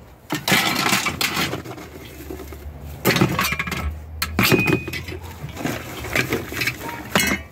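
Gloved hands rummaging through a pile of scrap wire and metal: irregular rustling, scraping and clinking of metal pieces being shifted and pulled out, over a low steady rumble.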